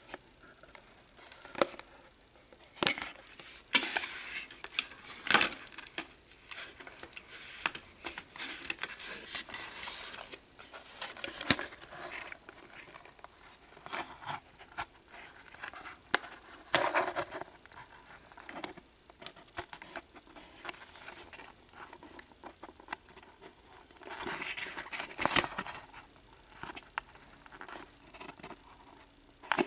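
Hands scraping, prying and rustling at the flaps of a kraft cardboard box while opening it, with irregular scratches, clicks and short tearing sounds. There are louder flurries about four to six seconds in and again around twenty-five seconds in.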